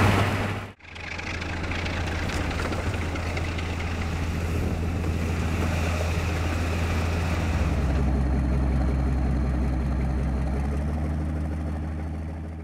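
Railway snow plow train running through snow: a steady low drone under a rush of noise. The sound breaks off abruptly about a second in, the drone drops lower about two-thirds of the way through, and it all fades out near the end.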